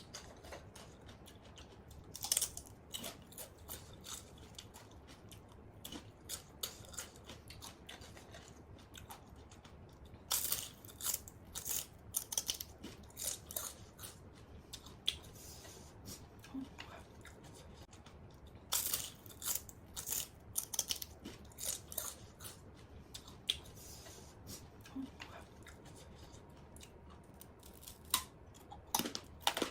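Close-miked crunchy chewing and biting of fresh raw vegetables, in bursts of crisp cracks separated by quieter pauses.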